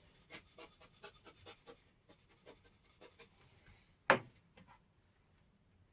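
A hand flock applicator being pumped to blow flock fibres onto wet paint: a quick run of soft puffs, about three a second, that thins out. There is one sharp knock about four seconds in.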